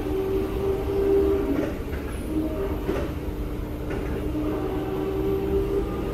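SMRT C751B electric metro train running, heard from inside the carriage: a low rolling rumble with steady humming tones, a few light knocks, and a faint whine rising slowly in pitch near the end.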